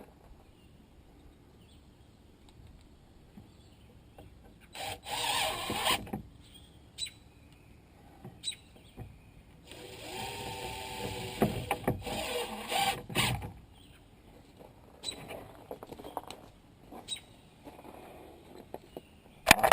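Power drill running in two spells, briefly about five seconds in and for about three seconds from ten seconds in, its motor pitch shifting as it works, with a few short clicks and faint chirps between.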